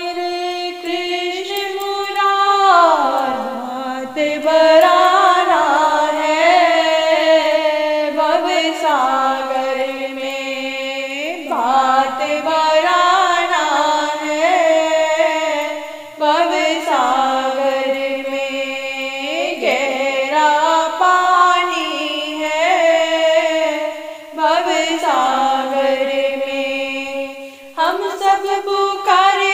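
A woman singing a Hindi devotional bhajan to Krishna: one voice holding long notes that slide up and down between pitches, with short breaks between phrases.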